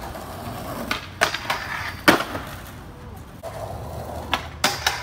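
Skateboard wheels rolling on concrete, with several sharp clacks of the board's tail and deck hitting the ground, the loudest about two seconds in and a quick cluster near the end.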